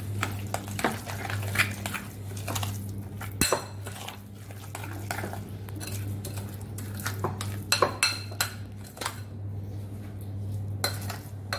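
A metal spoon stirring a thick hung-curd and spice marinade in a glass bowl, clinking and scraping against the glass in irregular strokes. A steady low hum runs underneath.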